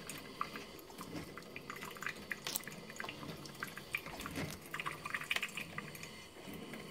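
Cuisinart Brew Central 14-cup coffee maker brewing plain water on its first cleaning cycle, with irregular small pops and ticks of the heating water as it is pushed through.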